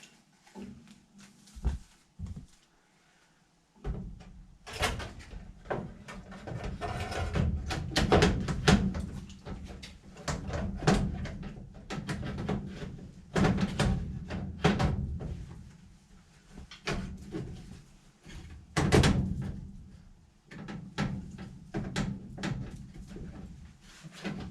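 Repeated knocks, clunks and rattles of hard parts being handled and fitted. A low steady hum sets in about four seconds in.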